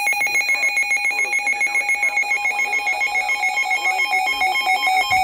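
Weather radio receiver's alert alarm: fast, even electronic beeping on two high pitches, signalling an incoming warning.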